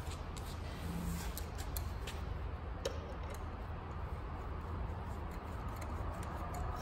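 Scattered light metallic clicks and ticks of a hand wrench working the bolts of a serpentine belt tensioner, at uneven intervals, over a steady low hum.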